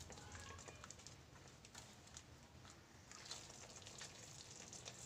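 Faint stirring: a wooden spatula scraping and tapping through thick onion-tomato masala in a steel pan, with scattered light clicks.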